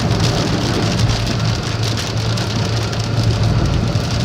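Heavy rain on a moving car's roof and windscreen, heard from inside the cabin, over a steady low hum of engine and road noise.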